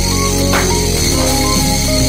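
Electronic background music with drums and synth notes; the model helicopter's motors are not heard.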